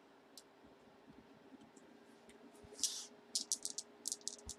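A few single computer-mouse clicks, then a quick run of sharp rattles and clicks from hand handling that fills the last second and a half or so.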